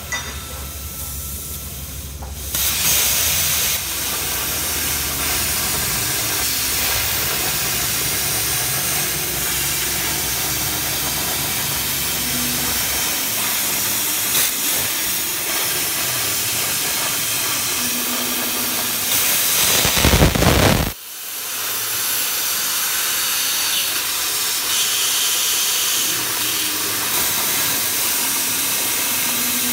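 CNC plasma cutter's arc hissing steadily as the torch cuts sheet metal, louder from about two and a half seconds in. Just before the twenty-second mark it surges loudly, cuts out suddenly for about a second, then the hiss comes back as the next cut starts.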